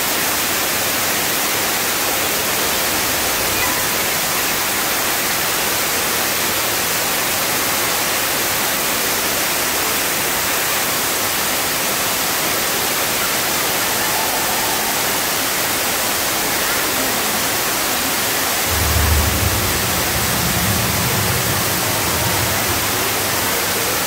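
A waterfall spilling down a rock face, making a steady, even splashing hiss. About three-quarters of the way through, a low rumble joins it for a few seconds.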